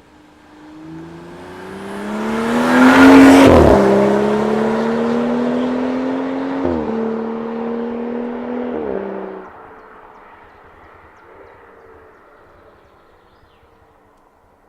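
BMW 335i's turbocharged straight-six running through a Remus full exhaust, accelerating hard past at full throttle. The engine note rises as it approaches, is loudest about three seconds in, and drops in pitch as it passes. It keeps pulling away through two quick upshifts and fades out about halfway through.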